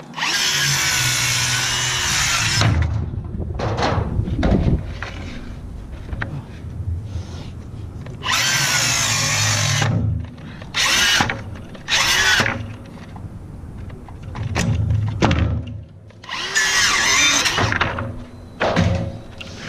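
A power drill running in repeated bursts, a couple lasting about two seconds and others brief, with knocks and handling noises in between.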